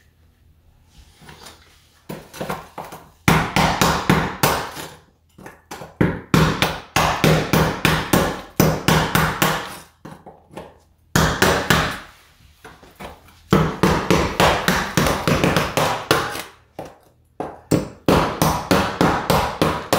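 A framing hammer striking the end of a steel 5-in-1 tool, driving its blade to chip cured thinset mortar off cement backer board. It comes in rapid runs of sharp metal-on-metal blows with short pauses between, starting about two seconds in.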